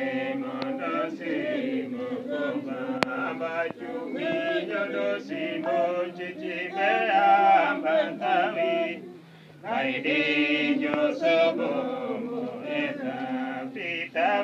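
A church choir of men and women singing a hymn together in chant-like style, breaking off briefly about nine seconds in before the singing resumes.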